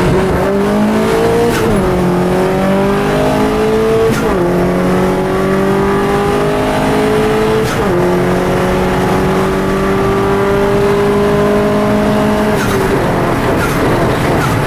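Opel Astra engine heard from inside the cabin, pulling hard from a standstill. The revs climb through the gears with three quick upshifts, about 1.5, 4 and 8 seconds in, each gear lasting longer than the one before. Near the end the steady engine note breaks up into rougher noise.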